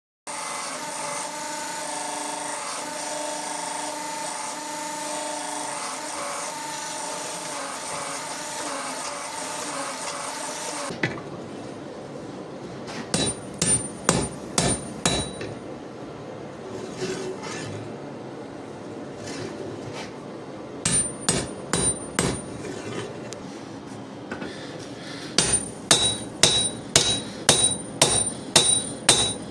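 A steady rushing sound with a hum for the first ten seconds or so, then it cuts away to hammer blows on hot steel over an anvil, each with a high metallic ring. The blows come in short bursts and then a steady run of about three a second near the end, drawing out a damascus steel billet into a sword blade.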